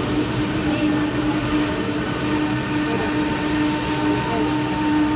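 Steady running noise of a diesel-hauled passenger train in motion, heard from inside the coach: a rumble of wheels on rails under a steady hum, with a faint higher whine joining about two seconds in.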